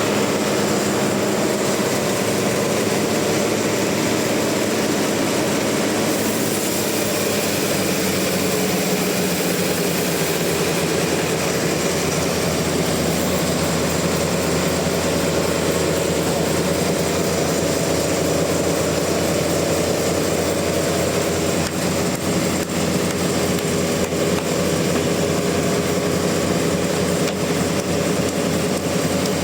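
Sawmill machinery running steadily: a loud, continuous mechanical drone with a steady hum.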